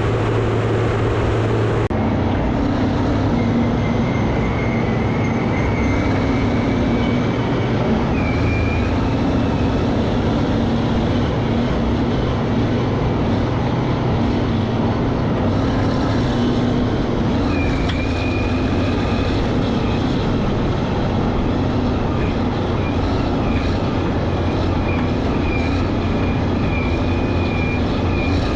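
Caterpillar 637C scraper diesel engines running hard under load, a loud steady drone with a high squeal that comes and goes from about three seconds in.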